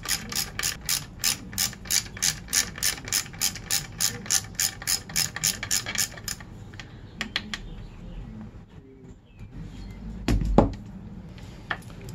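Ratchet wrench clicking steadily, about four clicks a second, as it backs out the kick-start lever's pivot bolt; the clicking stops about six seconds in. A few light metal clicks follow, then a single dull thump near the end, the loudest sound.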